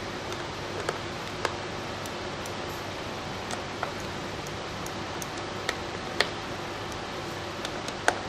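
Scattered sharp clicks and taps of a screwdriver and screws on the metal of a semiconductor cooler assembly as its screws are fixed, over a steady hiss.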